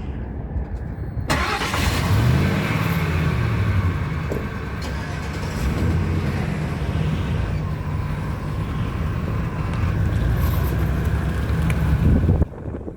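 2001 Ford F-150 pickup engine starting up about a second in and running, its pitch shifting up and down, then cutting off abruptly near the end.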